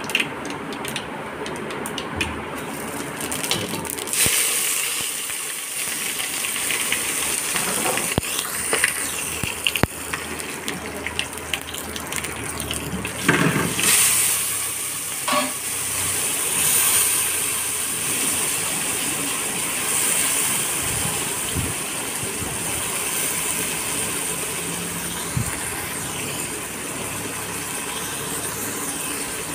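Hot oil sizzling and mustard seeds crackling in an aluminium cooking pot. About halfway through, the sizzle swells briefly as sliced potatoes are tipped into the oil, then it carries on steadily.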